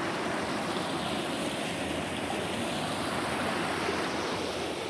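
River water running steadily, an even rushing hiss.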